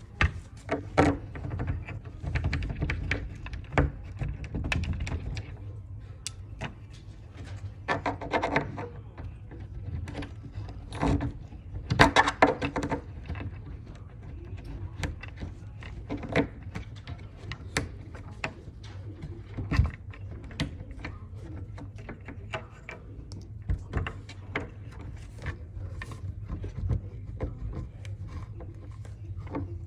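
Bed-frame hardware being fitted and tightened by hand: irregular clicks, taps and scraping of screws, bolts and a hex key against the frame panels. There are busier clusters of rattling about eight and twelve seconds in, over a low steady hum.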